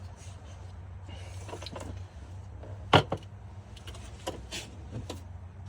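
Scattered metal knocks and clicks as an alternator is handled and worked into place in a car's engine bay, the loudest a sharp double clunk about three seconds in, over a steady low hum.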